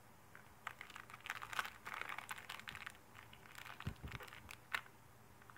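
Trading cards and their pack wrapper being handled: a run of faint rustles and light clicks, with two sharper taps a little before the end.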